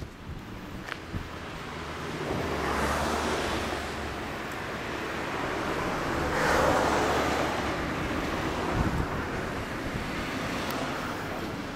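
Honda Hornet 250's inline-four engine running through an aftermarket RealizeRacing exhaust, with wind noise on the microphone. The sound swells twice, about two seconds in and again about six seconds in.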